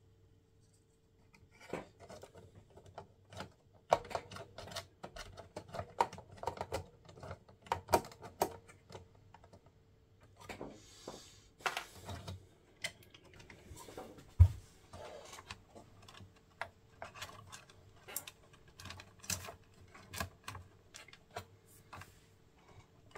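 Plastic chassis parts and wiring of an opened Sharp GF-9494 boombox being handled and shifted by hand: irregular light plastic clicks and taps, with a single heavier thud a little past halfway. A faint steady hum sits underneath.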